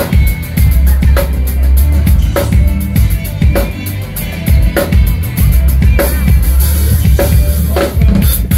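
Band music with no singing: a drum kit keeps a steady beat, a sharp snare hit about every 1.2 seconds over quick hi-hat ticks, with heavy bass underneath.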